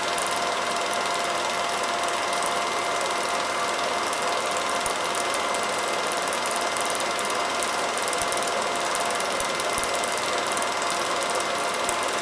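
Film projector running steadily: an even mechanical whir with a rapid, fine clatter from the film-advance mechanism.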